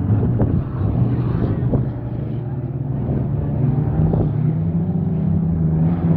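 Engines of several old cars and pickups racing on a dirt scramble track, running as a steady drone that grows louder and stronger about four seconds in.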